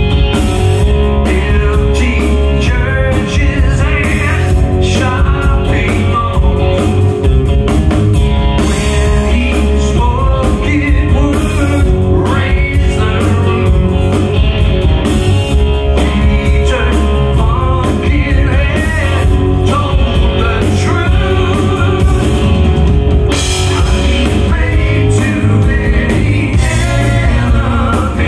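A live rock band playing: guitar, bass guitar and drum kit, with a man singing lead.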